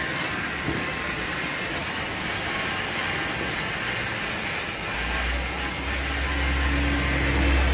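Steady hissing, rushing machine noise, with a low hum growing stronger about five seconds in.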